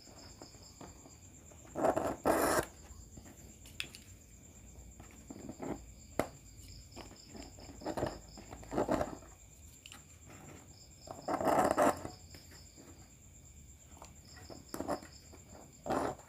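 Cutter blade scraping the enamel insulation off a speaker voice coil's thin lead wire so it will take solder, in several short scratchy strokes a few seconds apart. Crickets chirp steadily in the background.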